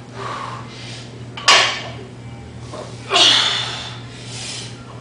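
A woman's forceful breaths through the mouth while deadlifting a heavy barbell for reps: two loud, sharp exhales about a second and a half and three seconds in, with fainter breaths near the start and near the end.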